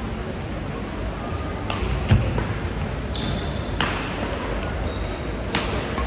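Badminton doubles rally: rackets strike the shuttlecock three times, about two seconds apart, with a heavy footfall thud about two seconds in and sneakers squeaking on the court floor near the middle, over steady hall noise.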